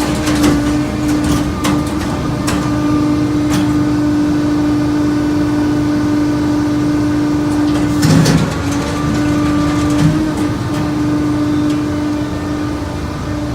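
Harris TGS220B scrap baler's hydraulic power unit running with a steady whine while it bales steel scrap, with metallic clanks and sharp knocks from the scrap and machine. The whine drops out briefly about 8 seconds in, where the loudest knock comes, and again near the end.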